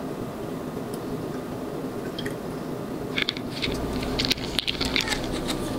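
Non-alcoholic white grape wine poured into a glass flute over frozen ice cubes, with crackling clicks of the liquid on the ice from about three seconds in, over a steady background hiss.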